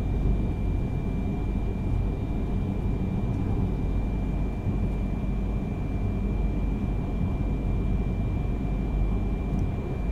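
Yamagata Shinkansen Tsubasa train running, heard from inside the passenger car: a steady, even rumble with a thin steady high tone above it.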